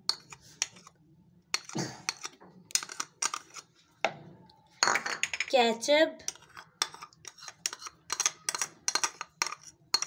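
Steel spoon scraping and tapping against small ceramic bowls, giving an irregular run of sharp clinks as thick mayonnaise and ketchup are scraped out into a mixing bowl.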